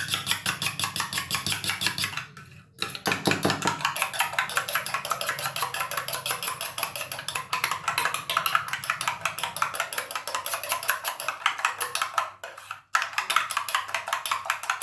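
Egg and brown sugar being beaten in a bowl: a utensil clinks against the bowl in rapid, even strokes, pausing briefly twice.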